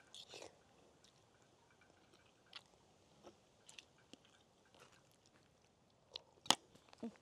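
A person eating rice from a plastic bowl with a spoon: quiet chewing and small scattered clicks of the spoon, with one sharper click about six and a half seconds in.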